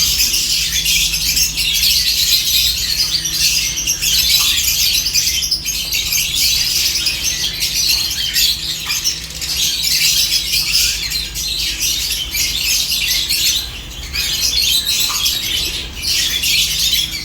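A flock of lovebirds chattering nonstop, a dense mix of high-pitched chirps and squawks overlapping each other.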